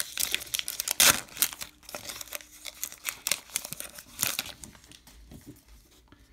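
A baseball card pack's wrapper being torn open and crinkled by hand: dense crackling, loudest about a second in, trailing off in the last second or so.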